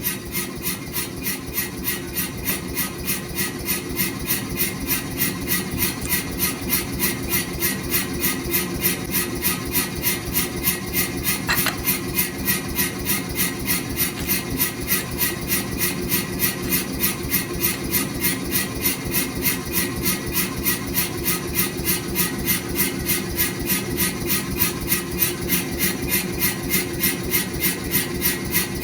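Power hammer running, a steady motor hum with an even beat of about two to three strokes a second.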